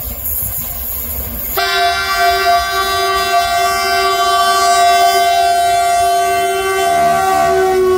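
South African Railways class 18E electric locomotive hooter sounding one long, steady multi-tone blast that starts suddenly about a second and a half in, over a low rumble; the pitch shifts slightly near the end.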